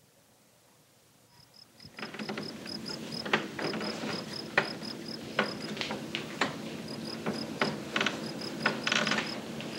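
Near silence, then a cricket starts chirping about a second in, a high, even chirp about four times a second with a short break after the middle: a night-time sound effect. From about three seconds in, scattered knocks of someone stepping on wooden ladder rungs join it.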